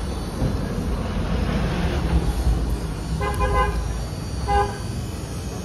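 Vehicle horn sounding twice, a half-second toot and then a shorter one, over a steady low engine rumble.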